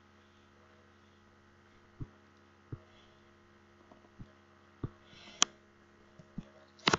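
Steady low electrical hum with scattered soft taps from a digital pen on a tablet screen while drawing; a sharper click a little past the middle and a quick double click at the end.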